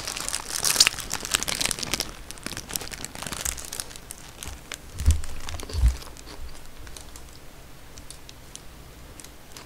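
Paper burger wrapper crinkling and crackling as a large burger is handled and bitten, densest in the first few seconds and then sparser. Two dull low thumps come about five seconds in.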